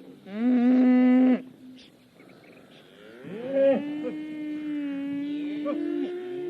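Cow mooing: a short moo about half a second in, then a long, drawn-out moo from about three seconds in that rises slightly near the end.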